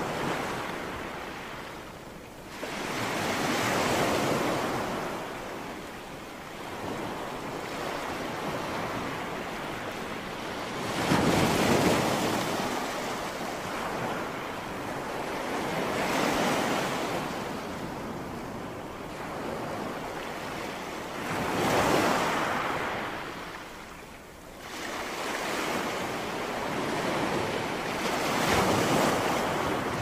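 Sea waves breaking and washing up on a sandy beach. The surf swells and falls away in surges every five to seven seconds.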